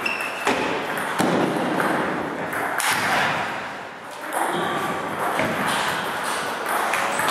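Table tennis ball clicking off bat and table as a rally ends, followed by several dull thuds.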